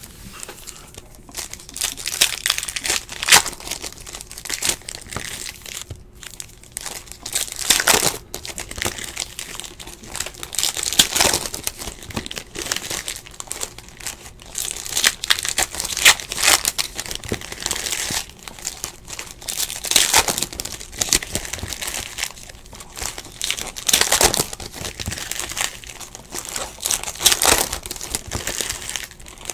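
Basketball card packs' foil-lined plastic wrappers being torn open and crinkled by hand, in repeated bursts every second or two.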